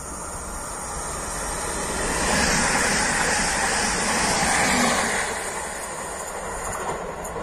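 Regional electric multiple unit train passing at speed on the rails. The rumble of its wheels grows as it nears, is loudest for a couple of seconds in the middle, then fades as it goes away.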